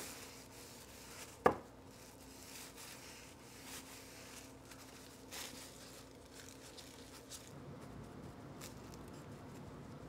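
Faint rag rubbing and handling sounds as wood stain is wiped onto a wooden hammer handle, with one sharp knock about a second and a half in.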